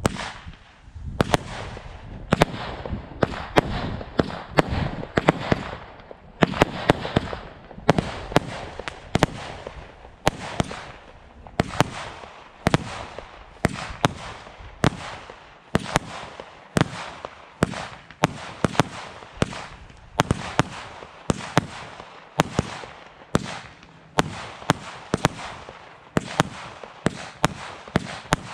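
Standard Fireworks 'Immortal' 125-shot barrage cake firing: a steady run of sharp shots, about two a second, with a rushing noise between them.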